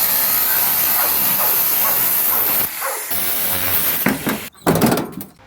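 Power tool cutting through a car body's sheet metal, a loud steady hiss over a motor whine. It breaks off briefly about halfway, then stops near the end after a short final burst.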